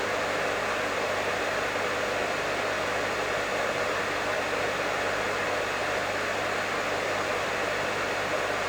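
Professional hair dryer running steadily: an even airy rush of blown air over a low motor hum.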